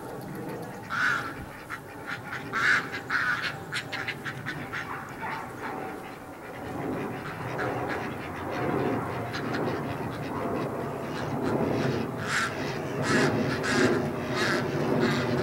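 A flock of ducks quacking in short repeated calls, with bursts of quacks about a second in and again near the end over a steady chatter from the flock.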